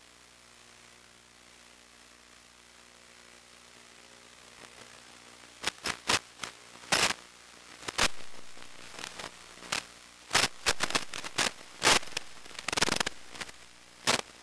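Static on the 1.3 GHz analog video link's audio: a steady hiss with a faint low hum. About halfway through, sharp crackles and pops break in again and again.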